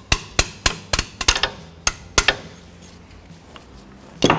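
Small hammer striking a punch, metal on metal, to drive a brake pad retaining pin out of a front brake caliper: about nine sharp, irregular taps in the first two seconds, then one more louder knock near the end.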